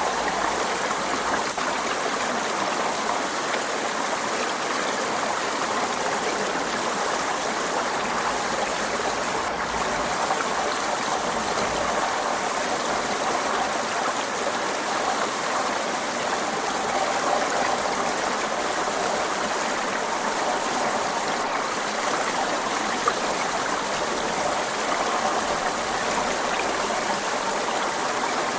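Forest stream running over rocks: a steady, even rush and babble of water.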